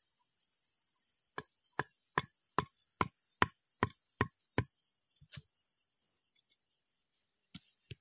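A run of about ten sharp knocks on the bamboo trap frame, evenly spaced at roughly two and a half a second, then a few scattered knocks near the end. A steady high insect drone runs underneath.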